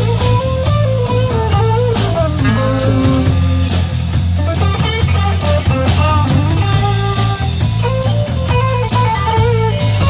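Instrumental break of a rock song: an electric guitar plays a bending lead melody over steady bass and drums, with no singing.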